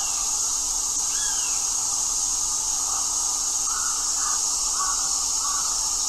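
Steady high-pitched insect drone outdoors, with a few faint short bird chirps over it, one about a second in and several more in the second half.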